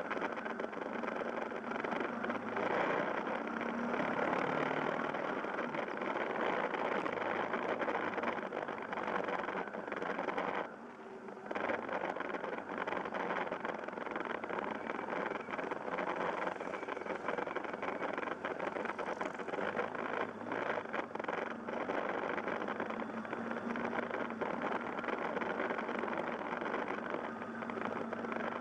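Yamaha Fazer YS250 motorcycle's single-cylinder engine running under way, mixed with a steady rush of wind and road noise. The sound drops briefly about eleven seconds in.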